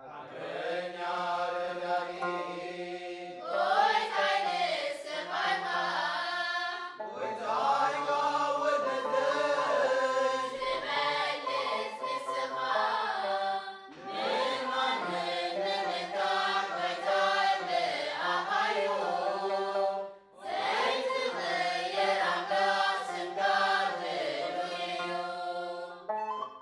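A church choir singing a Tigrinya Lenten hymn (mezmur) of the Eritrean Orthodox Tewahdo Church, in phrases of a few seconds each with brief pauses between.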